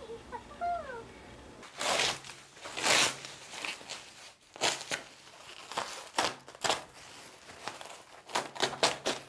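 White protective wrapping being pulled off a canvas and crumpled by hand, crinkling and rustling in a run of short bursts that begins about two seconds in.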